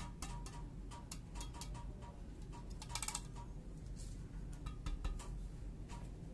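Badminton racket strings slapped against the palm again and again, a string of sharp irregular taps, some with a short ping, as the string tension is checked by feel.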